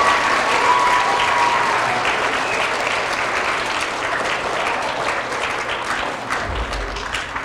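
Audience of school children applauding, the clapping slowly dying down, with a brief high cheer or whoop at the start.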